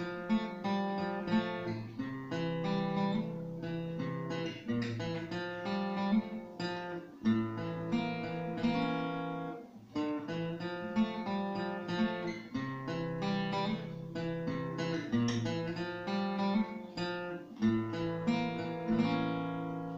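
Acoustic guitar picked note by note, playing a short arpeggiated phrase that repeats about every two and a half seconds, with the last notes ringing out near the end.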